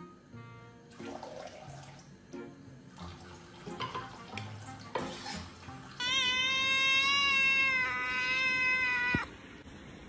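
Quiet background music for the first few seconds. Then a kitten's loud, drawn-out meow, held for about three seconds and stopping abruptly, sounding like "hey you".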